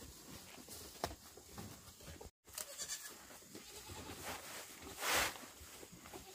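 Goats bleating in short calls, with a loud burst about five seconds in. The sound cuts out completely for a moment a little over two seconds in.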